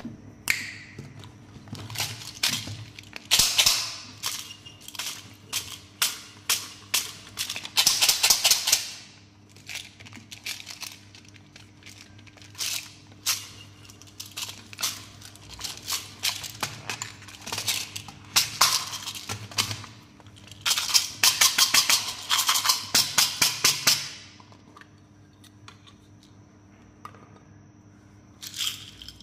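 Small hard candies rattling and clicking inside plastic containers as they are handled and shaken: quick bursts of rapid clicks, the loudest around a third of the way in and again in the second half, with single taps and knocks of plastic between.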